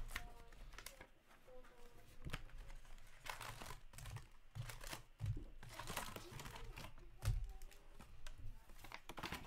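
Hockey card foil packs being handled and torn open, the wrappers crinkling and crackling in a series of rustles, loudest about halfway through and again near the end.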